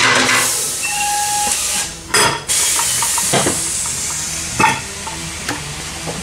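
Wheel and tire being taken off a wheel balancer's shaft: a few metal clunks and knocks over a steady hiss, with a short beep near the start.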